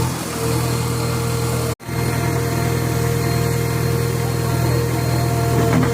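JCB 3DX backhoe loader's diesel engine running steadily at an even pitch. The sound cuts out for an instant about two seconds in.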